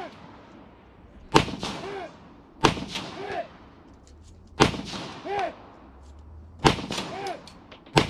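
Rifle firing five single shots at an unhurried pace, one every one and a half to two seconds. Each of the first four is followed well under a second later by a short ringing tone, the ring of a steel target hit downrange.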